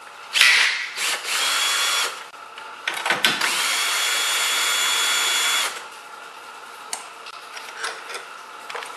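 Cordless drill/driver spinning a socket on a car battery's terminal clamp nut to loosen it for disconnecting the battery. There is a short blip, then a run of about a second, then a longer steady run of about two and a half seconds, the motor whine settling at one pitch each time. A few faint clicks follow near the end.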